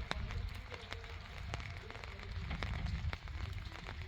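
Raindrops ticking irregularly, many scattered small drips, over a steady low rumble.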